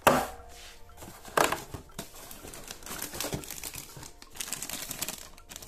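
Thin plastic toy bag crinkling as it is picked up and handled, in irregular crackles. There is a sharp knock at the very start and another about a second and a half in.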